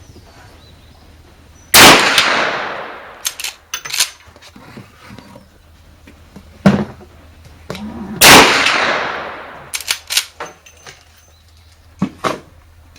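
Two shots from a Marlin 1894 lever-action carbine in .357 Magnum, about six and a half seconds apart, each dying away over a couple of seconds. Short metallic clacks come between and after the shots as the lever is worked.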